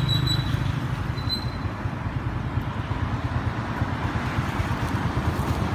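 Steady low outdoor rumble, with a couple of faint, brief high-pitched tones in the first second or so.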